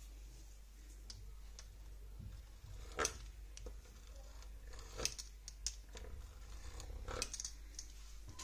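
Fluted metal pastry wheel being run across a sheet of rolled dough on a stone countertop, giving scattered clicks and taps, the sharpest about three seconds in and again around five and seven seconds.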